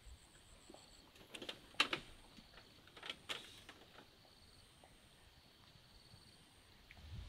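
Quiet lakeside ambience with a faint, high, pulsing insect trill, broken by a few sharp clicks and knocks between about one and three and a half seconds in.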